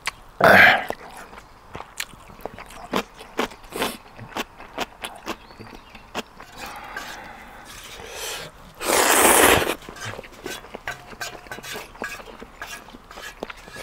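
A person eating ramen noodles: two loud slurps, a short one about half a second in and a longer one about nine seconds in, between many small chewing and clicking sounds.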